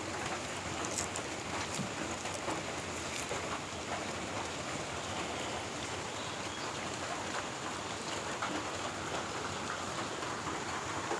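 Steady rain falling, with light crackles of a plastic grafting strip being stretched and wound around an orange graft in the first few seconds.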